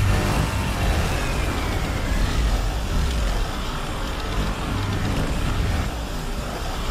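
Mechanical kaiju sound effect for Mecha King Ghidorah: a loud, steady, engine-like rumble with a faint falling whine in the first couple of seconds.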